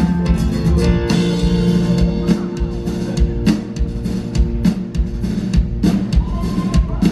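Live rock band playing an instrumental passage, with a drum kit pounding under sustained electric guitar notes.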